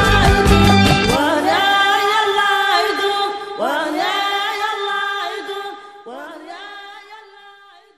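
The closing bars of a Sahrawi Hassaniya song: the band with its low drums drops out about a second in, leaving singing with sliding, ornamented notes that fades out near the end.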